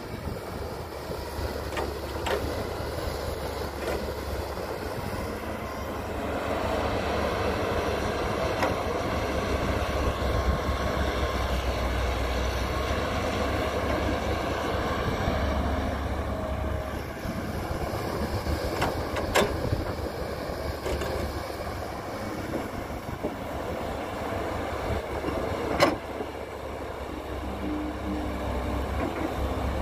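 Caterpillar tracked excavator's diesel engine running under load as it digs and swings soil, with a few sharp knocks of bucket and dirt.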